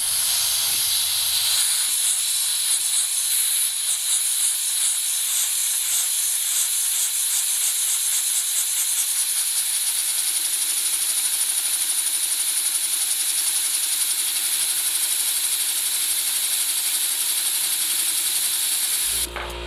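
Compressed air hissing through a LEGO two-cylinder model 'steam' engine as it runs, with a fast, even pulsing in the hiss. Near the end the hiss cuts off and a low steady hum starts.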